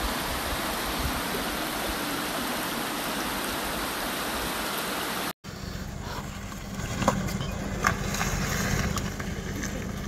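Steady rush of water flowing over the rocks of a waterfall stream. About five seconds in it cuts off abruptly and gives way to a quieter steady low hum with a few sharp clicks.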